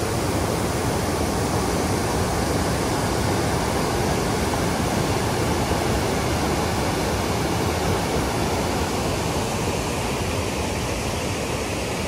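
Mountain stream rapids rushing over boulders: a loud, steady roar of white water, the stream high and fast after rain.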